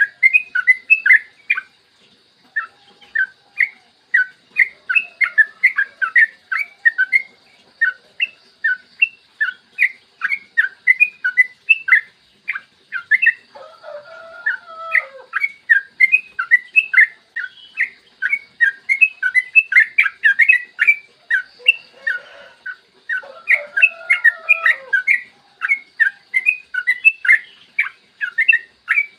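Yellow-vented bulbul (trucukan) singing a long, rapid, unbroken run of short chattering notes: the long-phrase 'ropel panjang' song used as a lure to set other bulbuls singing. Twice, lower-pitched arched notes break in briefly.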